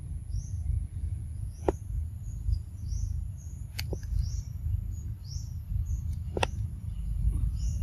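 Outdoor forest ambience: short high bird chirps repeating every half second or so over a steady high-pitched insect hum and a low rumble on the microphone. Three sharp clicks stand out, about two seconds apart.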